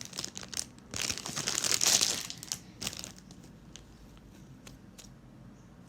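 Packaging crinkling and tearing as a squishy is unwrapped: a loud stretch of crackling for about a second and a half, then a few light crackles.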